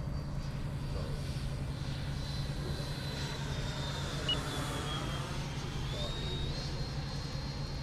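Freewing F-22 Raptor RC jet's 90mm electric ducted fan passing overhead: a high, steady fan whine that slides down in pitch as it goes by, with a rushing whoosh at the pass. About six seconds in the whine steps back up.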